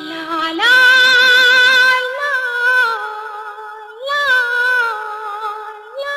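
A woman singing a wordless vocalise in long, held notes with vibrato, each phrase opening with a small upward turn, over soft instrumental accompaniment. This is the opening of a Malayalam film song.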